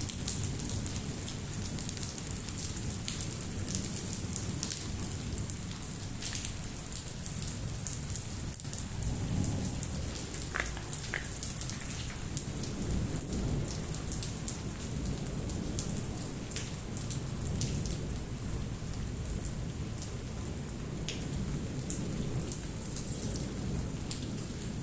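Hailstorm: hailstones pelting hard surfaces in a steady shower, many sharp ticks over the hiss of falling rain and hail.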